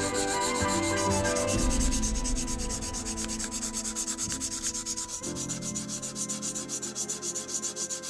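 Hand-sanding the flat of a Damascus steel chef's knife blade with an abrasive pad: rapid, regular back-and-forth scrubbing strokes of abrasive on steel.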